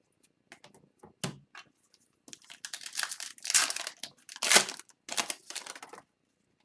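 Foil wrapper of a hockey card pack crinkling and tearing as it is handled and ripped open, in a run of crackly bursts from a little after two seconds in, after a few light clicks and a knock.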